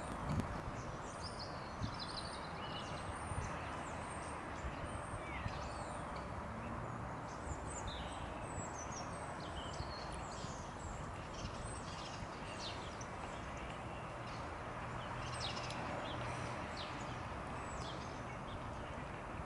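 Birds chirping, with many short high calls and brief whistles scattered over a steady background of outdoor noise, and a few faint clicks.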